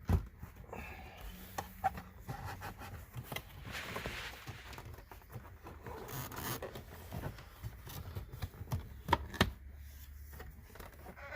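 Hands working on car parts and wiring: scattered clicks, taps and scraping, with a longer hissing scrape about four seconds in.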